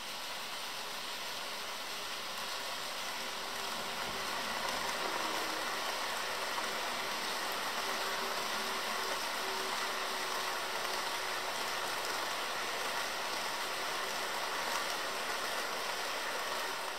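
HO scale model diesel locomotives, a long lashup of powered CP Rail units, running past on sectional track: a steady whirring hiss of small electric motors, gears and wheels on the rails, with a faint on-and-off whine. It grows a little louder over the first few seconds as the units draw near.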